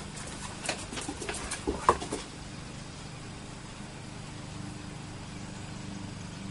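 A short flurry of light clicks and taps from dogs' claws and paws on wooden deck boards, the loudest tap about two seconds in, over a steady low hum.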